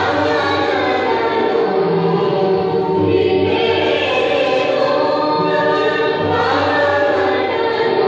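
Choral music: voices singing long held chords, with a low note that changes every few seconds.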